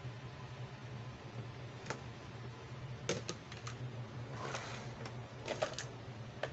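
Hard plastic toys and a plastic tray being handled and set down on a table: a scatter of short light clicks and clacks, most of them in the second half.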